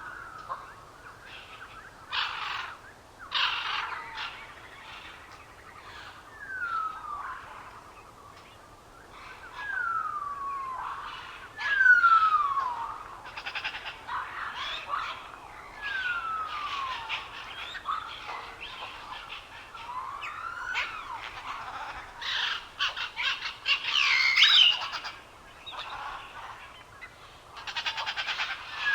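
Birds singing: a clear whistle sliding down in pitch, repeated every few seconds, with shorter buzzy chirps and trills between.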